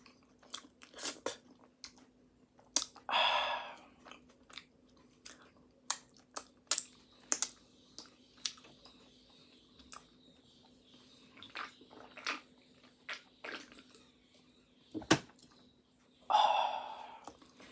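Close-up chewing of flaky pastry: irregular wet clicks and crackly crunches from the mouth, with two longer rushing sounds about three seconds in and near the end.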